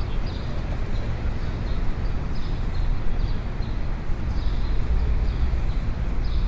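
City street ambience: a steady low rumble of traffic, with short high-pitched chirps repeating irregularly over it.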